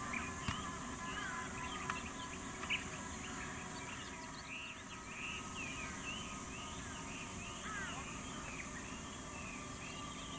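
Many small birds chirping and twittering in quick, overlapping calls, over a steady high-pitched insect buzz and a low, even background rumble.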